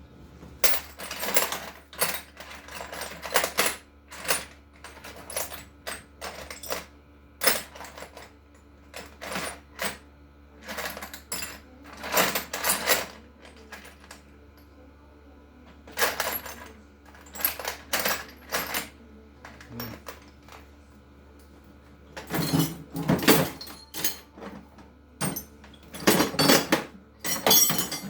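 Loose metal hardware clinking and rattling as it is handled and rummaged through, in irregular clusters of clatter with louder bursts near the middle and the end, as when searching through bolts.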